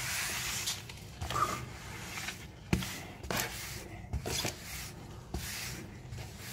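Slime being stirred and handled in a plastic bowl: repeated soft rubbing noises with short pauses, and a sharp knock a little under three seconds in.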